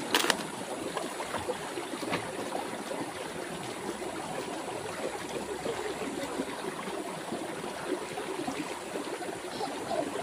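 Shallow river running over rocks in a steady rush of water, with a brief sharp knock right at the start.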